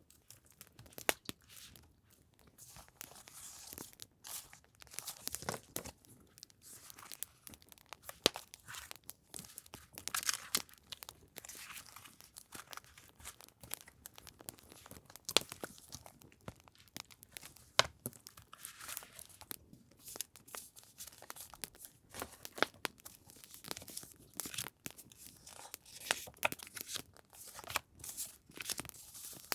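Paper and packaging being handled, rustling, crinkling and tearing in irregular bursts, over a steady scatter of campfire crackles.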